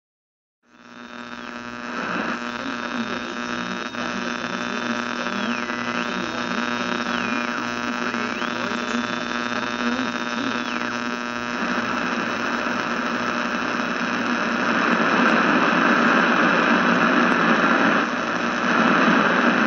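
Radio receiver being tuned across the dial: a steady hum with high whistling tones that slide down and back up between stations, giving way about halfway through to a louder hiss of static.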